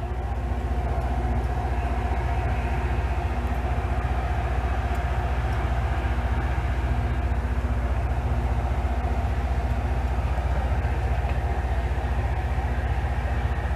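Loram rail work train's diesel engines running with a steady low hum.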